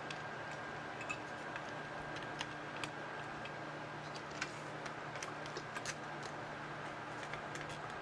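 Faint, scattered small clicks and taps from the plastic switch housing, switch and a small machine screw being handled and fitted together, over a steady low hum.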